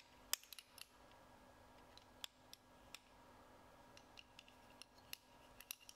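Faint, scattered light metallic clicks from aluminium brake levers being handled and squeezed, about ten in all, over near-silent room tone.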